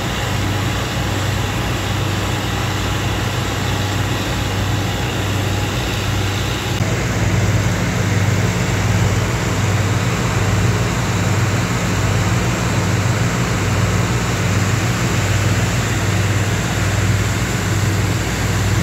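A steady low engine or motor hum over a constant wash of noise, like rushing water or traffic. The sound changes abruptly about seven seconds in, where a second, higher hum line joins.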